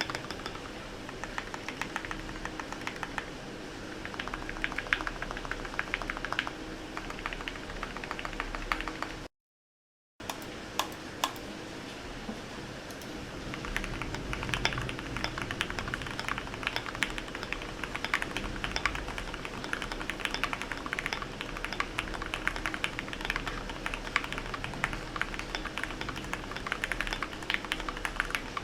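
Typing on a flex-modded GMMK Pro mechanical keyboard with lubed Gateron Milky Yellow linear switches: a rapid run of keystrokes that gets denser and louder about halfway through, over a steady hiss of rain. The sound cuts out completely for about a second roughly a third of the way in.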